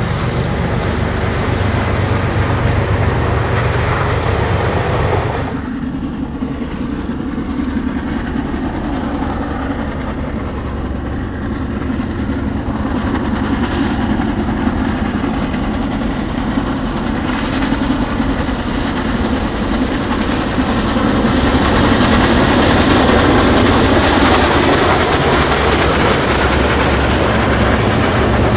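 Union Pacific Big Boy 4014, a 4-8-8-4 articulated steam locomotive, and its train rolling by, with wheels clicking on the rails. The sound changes abruptly about five seconds in and builds louder again in the last third.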